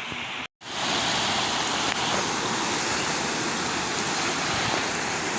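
Steady rushing roar of a waterfall. It cuts out completely for a split second about half a second in, then comes back louder.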